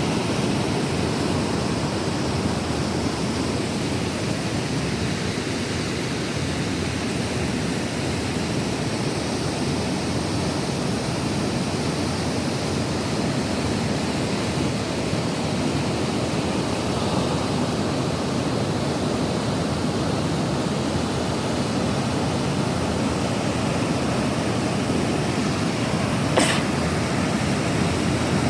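Waterfall and rapids rushing: a steady, even wash of falling white water, with one brief click near the end.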